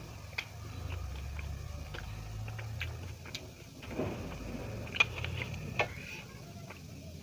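A person eating close to the microphone: chewing with a handful of sharp clicks, the loudest about five seconds in.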